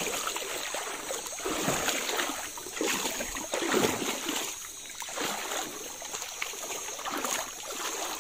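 Irregular splashing and sloshing of river water as someone wades and stirs the shallows to drive fish into a net.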